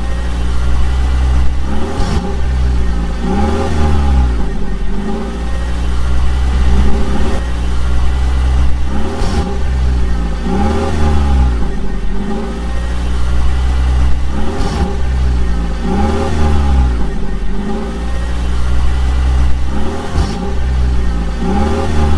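Vehicle engine sound revving up and down over and over above a steady deep rumble.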